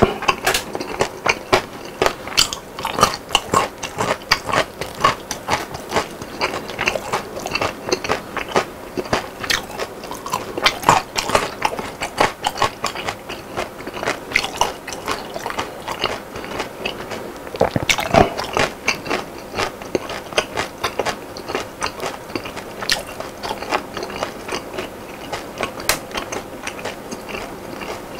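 Close-miked chewing of crispy battered fried food: a steady run of crisp crunches and crackles, several a second, as the coating breaks between the teeth.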